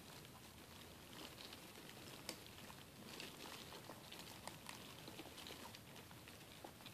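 Faint, irregular scratching and ticking of dubia roaches crawling over cardboard egg crate and feeding on an orange slice, with one sharper click a little over two seconds in.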